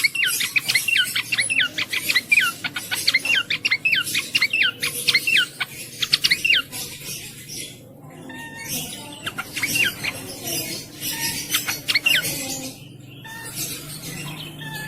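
Cingcoang (jongkangan) songbird in full song: a fast run of sharp, downward-sliding whistled notes for about six and a half seconds, then after a short pause a second, sparser run.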